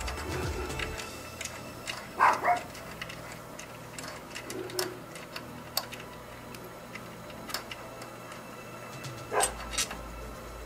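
Scattered light clicks and taps from hand tools and metal engine parts being handled while the timing-cover bolts are worked loose, at irregular intervals, with a slightly louder clatter about two seconds in and again near the end.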